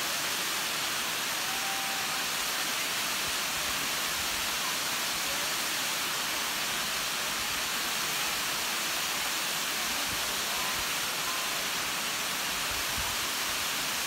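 Waterfall: water pouring over tiered rock ledges, a steady, even rushing hiss.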